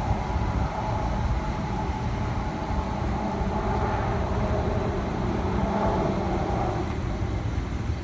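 Steady low mechanical rumble with a faint hum that wavers slightly in pitch, from a running motor or machinery.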